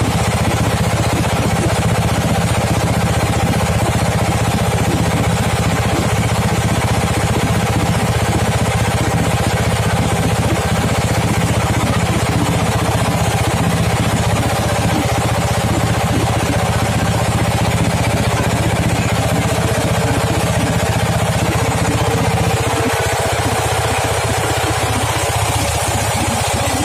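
Boat engine running steadily under way, heard from on board the boat. The engine note changes slightly about twenty-two seconds in.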